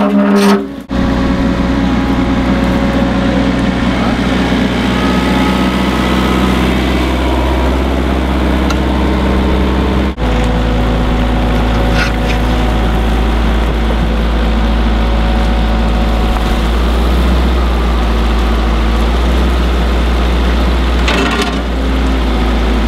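Kubota mini excavator's diesel engine running steadily with a constant low hum; the sound drops out briefly twice.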